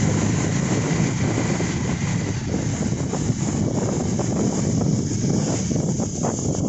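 Motorcycle running along at steady road speed, its engine rumbling with wind buffeting the microphone.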